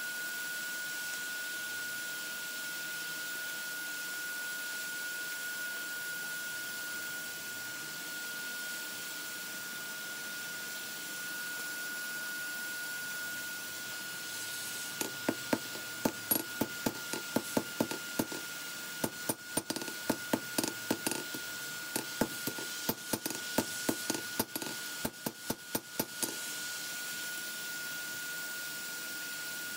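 Hand hammer forging hot lawnmower-blade steel on an anvil: quick runs of sharp blows, about three or four a second, starting about halfway through and stopping a few seconds before the end. A steady high whine runs underneath throughout.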